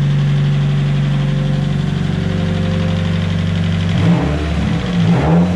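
Nissan SR20DET turbo four-cylinder idling steadily while it warms up, the head now quiet after a bad hydraulic lifter was replaced. From about four seconds in, the engine note wavers up and down a few times.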